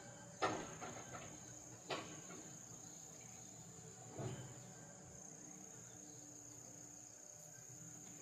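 Steady high-pitched insect trilling, with three short knocks about half a second, two seconds and four seconds in, the first the loudest.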